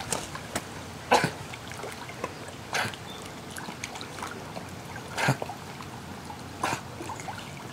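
Two dogs paddling across a swimming pool: gentle water sounds from their swimming, broken by several short sharp sounds a second or more apart.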